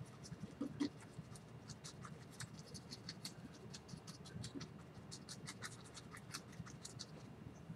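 Bristles of a small fan brush scratching and dabbing titanium white oil paint onto a wet canvas, laying in cloud highlights. A quick, uneven run of faint, short scratchy strokes.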